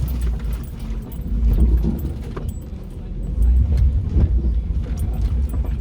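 A four-wheel drive's engine rumbling low inside the cabin while the vehicle works along a rough off-road track, with scattered knocks and rattles. The rumble eases a little before halfway and builds again in the second half.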